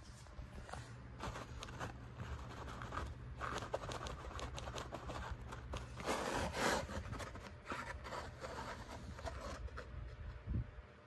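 Handmade paper bus models being handled and slid over a cloth tablecloth: irregular rustling and scraping of paper, loudest about six seconds in.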